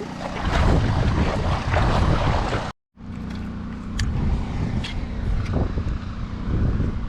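Wind buffeting the microphone over moving water, a steady rumbling noise, with a few light clicks in the second half. The sound drops out completely for a moment about three seconds in.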